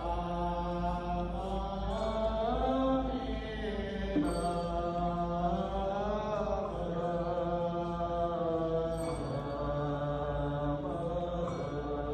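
Buddhist monks' chanting: long, drawn-out sung notes that rise and fall slowly in pitch.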